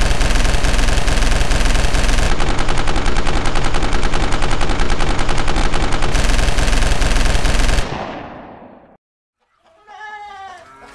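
Sustained automatic rifle fire, one long unbroken burst of rapid shots that fades away about eight seconds in. Near the end a faint pitched call follows.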